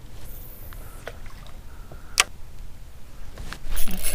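Light clicks and knocks of fishing tackle being handled in a kayak after a cast, with one sharp click about two seconds in and a short rushing noise near the end.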